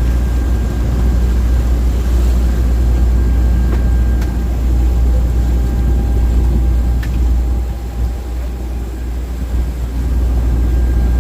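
Motorboat engine running steadily underway, a strong low drone with the wash of water and wind over it and a few light clicks.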